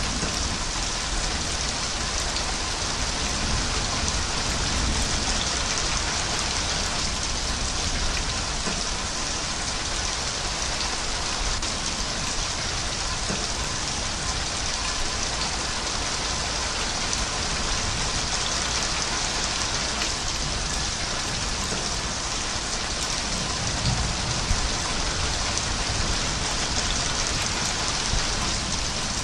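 Steady, heavy rain falling, an even, unbroken hiss with no thunder.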